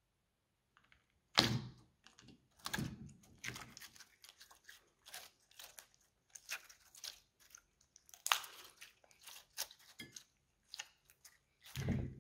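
Clear glitter slime squeezed and stretched by hands, making irregular wet squelches and crackling pops, the loudest about a second and a half in, around eight seconds in and near the end.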